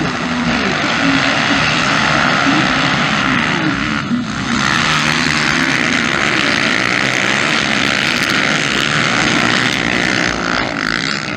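A pack of four-stroke motocross bikes (Honda CRF230F/CRF250F class) revving hard and racing together. Several engines rise and fall in pitch in a dense, continuous mass, with a brief dip about four seconds in.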